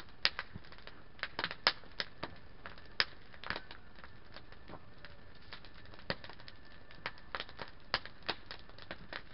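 Wood fire burning in a steel fire ring, crackling with irregular sharp snaps and pops over a low steady hiss.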